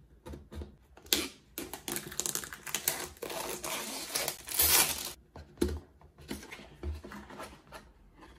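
Plastic shrink-wrap on a cardboard box being slit with a blade and peeled off: crinkling, scraping and tearing, densest in the first half. This is followed by a few light knocks of the box being handled.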